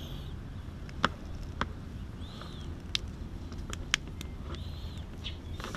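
Light, sharp clicks and small rattles of plastic cable connectors being handled and plugged together, four or five separate clicks over a low outdoor rumble. A faint high chirp recurs three times, about every two and a half seconds.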